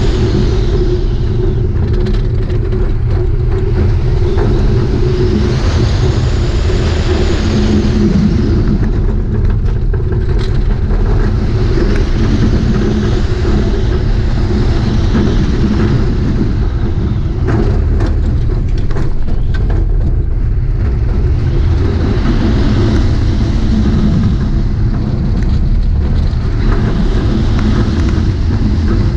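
Roller coaster train running along its steel track, heard from a seat on the ride: a steady, loud rumble of the wheels with wind rushing over the microphone, and a few sharp clicks and rattles about two-thirds of the way through.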